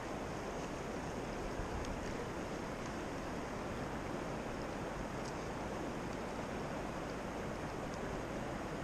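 Steady rushing of a big, fast river's current around a wading angler, with wind noise on the microphone.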